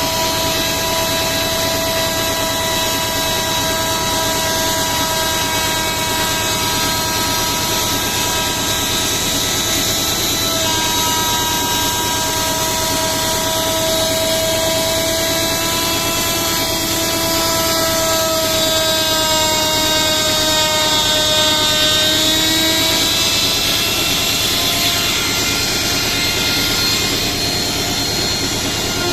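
Electric power tool running steadily with a high motor whine over a rushing noise, its pitch sagging slightly a couple of times as if under load.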